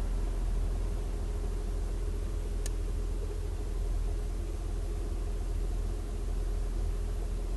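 Acura TL engine idling steadily after a cold start, with a single sharp click about two and a half seconds in.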